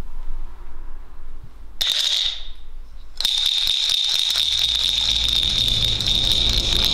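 An electric bell ringing with a fast metallic rattle. There is a short ring about two seconds in, then a continuous ring from about three seconds in.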